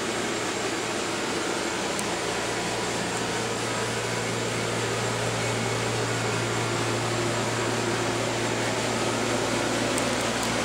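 A steady low machine hum under an even hiss, holding level throughout.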